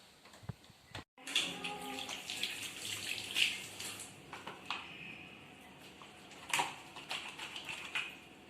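Tap water running and splashing, as at hand-washing, with scattered clicks and knocks of handling. The sound drops out completely for a moment about a second in.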